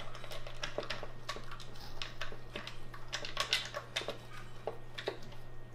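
A corgi eating from a plastic slow-feeder bowl: a string of irregular clicks as it eats.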